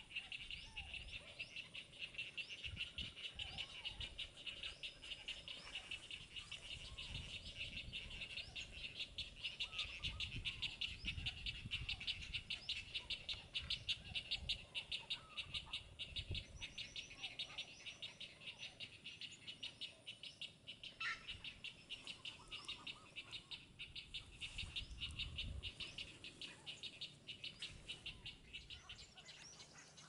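A continuous, high, fast-pulsing chorus of calling animals, with scattered short bird calls over it and occasional low rumbles beneath.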